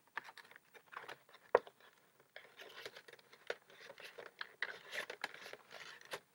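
Clear plastic packaging of a mini football helmet crinkling and crackling as it is handled and pulled open, with one sharp click about a second and a half in.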